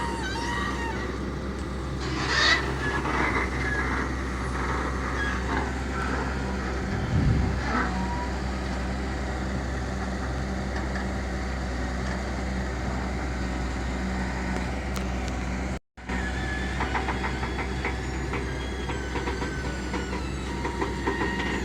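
Diesel engine of heavy earth-moving machinery running steadily, with metal clanks and scraping a couple of times and a fast rattling in the last few seconds. The sound drops out completely for a moment about two-thirds of the way through.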